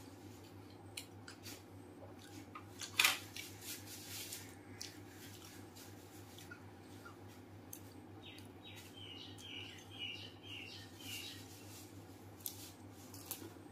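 Chewing of crisp fried pani puri shells filled with spiced water: scattered crunches and wet mouth clicks, with one loud crunch about three seconds in and a run of softer crackles later on, over a steady low hum.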